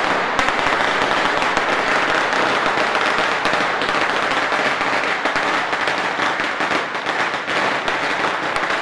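A long string of firecrackers going off: a dense, rapid, unbroken crackle of small explosions.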